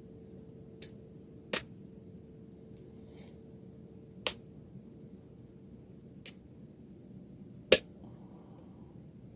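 Lock being picked: five sharp, short metallic clicks at irregular intervals, the loudest near the end, over faint steady background hiss.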